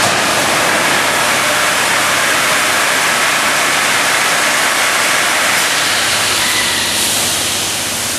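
High-pressure water jets of a touchless drive-thru truck wash spraying onto a tanker truck, a loud steady hiss of water with a low hum beneath. It eases off slightly near the end.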